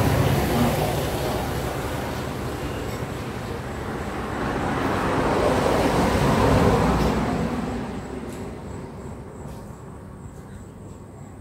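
A motor vehicle passing by: a wide rushing engine-and-road noise that swells to a peak about six to seven seconds in, then fades away.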